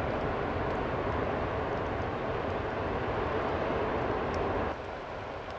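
Wildfire burning through a conifer forest: a steady rushing rumble with a few faint crackles. It drops abruptly in level near the end.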